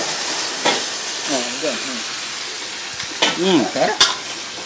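Food sizzling as it fries in hot oil, a steady hiss, with a few sharp knocks.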